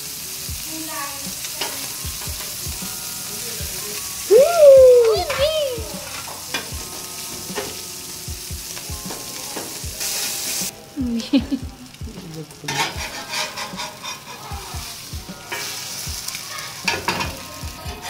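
A beef burger patty and an egg sizzling on a hot flat-top griddle, with a steel spatula scraping and tapping on the plate. A brief loud squeal about four seconds in.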